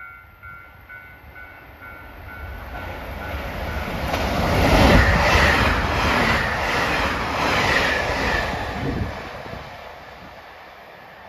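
Train passing close by on snow-covered track, its wheels clattering over rail joints in an even rhythm; it is loudest about five seconds in and fades away by about ten seconds. A faint repeating two-note beep dies away at the start.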